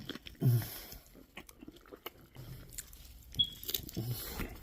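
A person biting into a Whopper burger and chewing it, with irregular wet smacks and small crunches.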